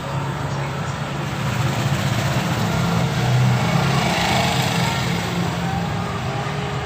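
A small petrol engine running nearby, growing louder to a peak about three and a half seconds in and then easing off.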